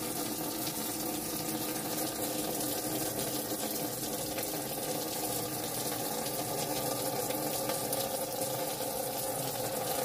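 Tap water pouring in a steady stream into the empty plastic wash tub of a twin-tub washing machine, splashing onto the pulsator as the tub begins to fill.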